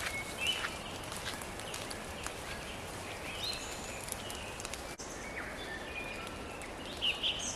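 Small forest birds calling: scattered short chirps and whistled notes over a steady background hiss, with a louder flurry of calls near the end. A few footsteps on the track in the first second.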